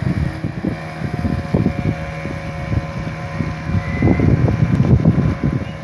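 Wind buffeting the microphone in gusts, over the steady, faint drone of a small passenger boat's outboard motor cruising across the water.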